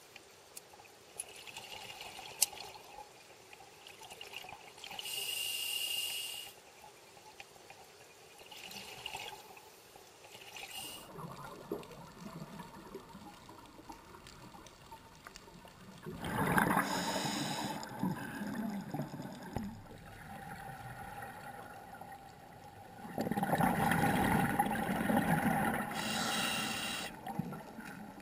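Scuba diver breathing through a regulator underwater: a hissing inhalation now and then, and bursts of bubbling exhaled air every few seconds, the two loudest and longest in the second half.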